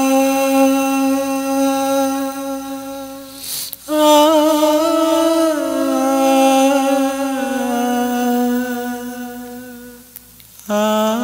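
Background music: a single voice humming a slow, wordless melody in long held notes that glide from one to the next. There is a brief break about four seconds in, and the voice fades near the end before the next phrase begins.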